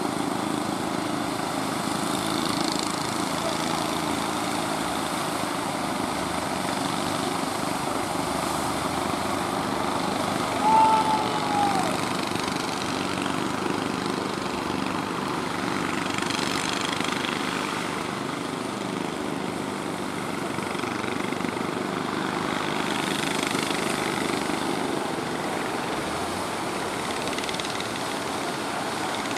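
A small outrigger fishing boat's engine running steadily, mixed with the wash of surf. About ten seconds in, a short high whistle-like call rises and falls.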